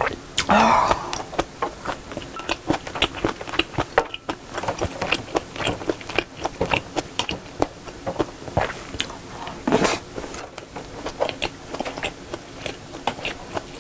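Close-miked chewing and mouth sounds, then a wooden spoon scraping and tapping in a large bowl as shrimp fried rice is mixed into jjajang sauce: many short clicks and scrapes in quick succession.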